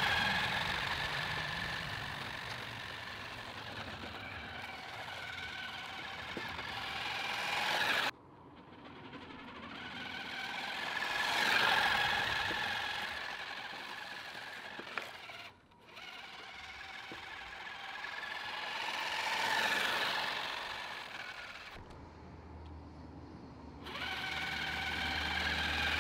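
1/10-scale electric RC car driving fast: a high motor and gear whine that swells and fades as it passes, several times over, breaking off abruptly a few times between passes.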